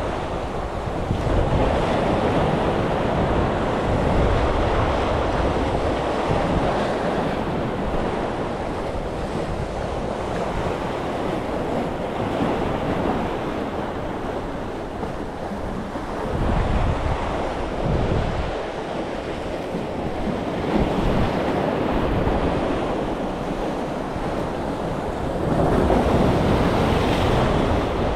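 Sea waves washing and breaking against the concrete armour blocks of a breakwater, with wind buffeting the microphone. The surf surges louder several times, most strongly near the end.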